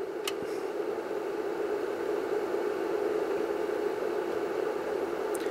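Transformer humming steadily while it feeds a rectifier loaded with a capacitor bank.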